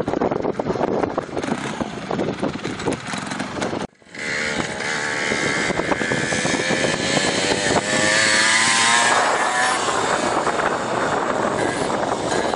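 Dirt bike engine running. After a break about four seconds in, its pitch climbs as the bike accelerates along the track, loudest a couple of seconds before the end, then settles.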